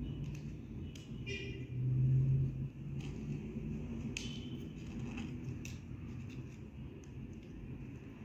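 Light clicks and scrapes of a thin metal tool working at the wires of a plastic light-bulb socket, over a low steady hum that swells briefly about two seconds in.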